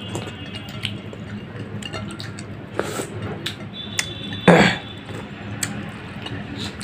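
Eating sounds of fingers being licked and wiped through curry gravy on a ceramic plate: small wet clicks and light clinks, with one louder mouth smack about four and a half seconds in, over a low steady hum.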